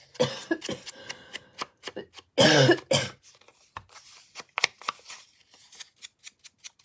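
A person coughs, once about a quarter second in and more loudly about two and a half seconds in, over the light scuffing and dabbing of a foam ink blending tool rubbed along a strip of paper.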